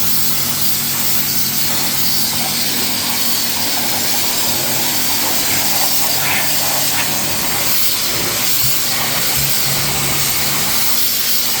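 Powercraft electric pressure washer running, a steady motor hum under the loud hiss of its water jet spraying onto paving slabs.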